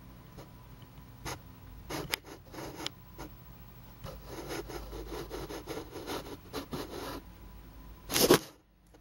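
Handling noise: scattered light clicks and rubbing sounds, with a louder rustle about eight seconds in.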